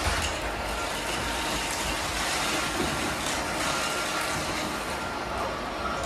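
Several robot vacuum cleaners running at once, a steady whir of their suction motors and brushes as they sweep up dry cereal from a hardwood floor, with a few faint ticks.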